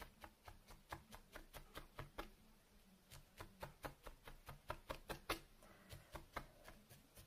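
Felting needle stabbing repeatedly into wool: a faint, quick tapping at about four strokes a second, with a short pause partway through.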